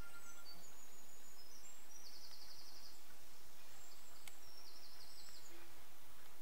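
Small birds singing: scattered short high chirps and two rapid trills, about two and five seconds in, over a faint low rumble.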